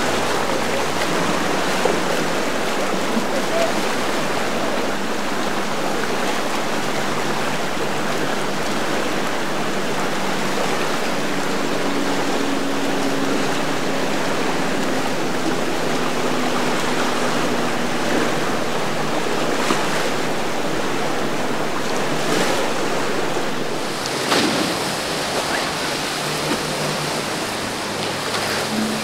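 Steady rushing of waves and moving water, with a low hum of boat engines underneath that falls slightly in pitch in the middle. There are a couple of short knocks near the end.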